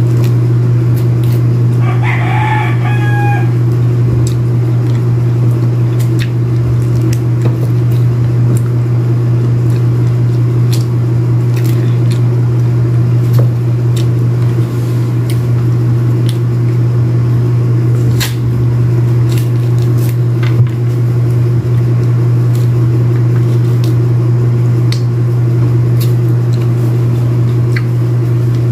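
A rooster crows once, about two seconds in, over a loud steady low hum. Scattered small clicks and crackles come from pomelo segments being peeled and handled.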